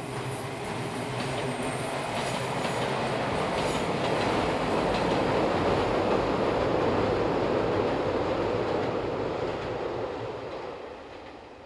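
Izuhakone Railway Daiyuzan Line electric train passing, wheels clicking over the rail joints in the first few seconds. The running noise builds to its loudest about halfway through and fades away near the end.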